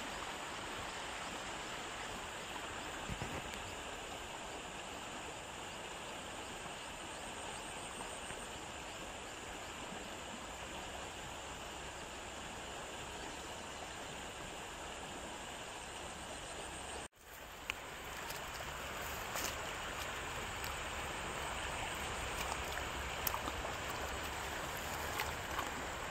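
Steady outdoor background hiss. It cuts out abruptly for an instant about two-thirds of the way through, then returns a little louder with scattered light clicks and crackles.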